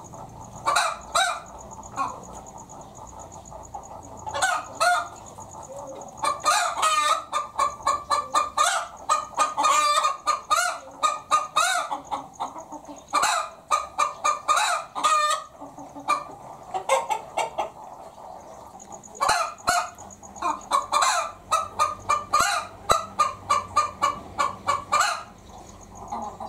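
Domestic hen cackling 'petok-petok': several bouts of rapid repeated clucks, the longest lasting several seconds, with quieter gaps between.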